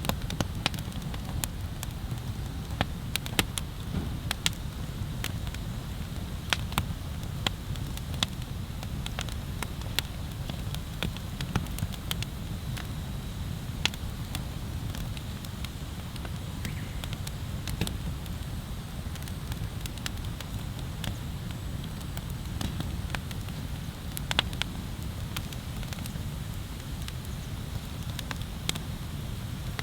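Wood bonfire crackling, with irregular sharp pops a few times a second over a steady low rumble; one pop about three quarters of the way through stands out as the loudest.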